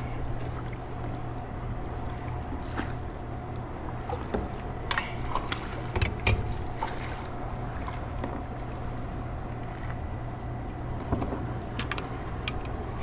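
Steady rushing of river water below a spillway around a fishing kayak, with scattered light clicks and knocks.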